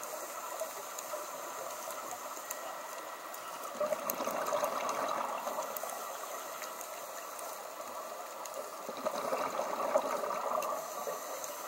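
Underwater scuba breathing through a regulator: a steady bubbling hiss that swells twice, about five seconds apart, as exhaled air bubbles out. Faint scattered clicks sound over it.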